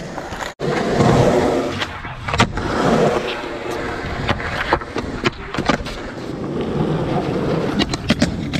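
Skateboard wheels rolling on a concrete skatepark surface, broken by a brief cut-out about half a second in, with several sharp clacks of the board's tail and trucks striking the ground and a ledge during tricks.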